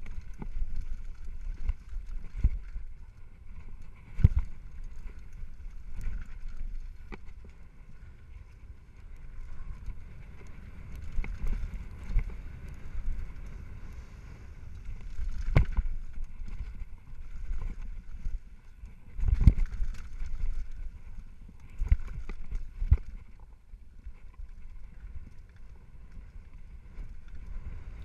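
Downhill mountain bike rolling fast over a dirt trail: a steady low rumble of tyres and wind on the microphone, broken by several sharp knocks as the bike hits bumps, the loudest near the middle and about two-thirds of the way in.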